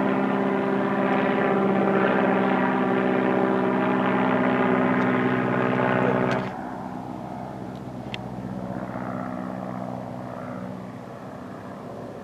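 Boeing-Stearman biplane's radial engine running in flight overhead, a steady propeller-engine tone. About six and a half seconds in it suddenly drops much quieter and continues faintly.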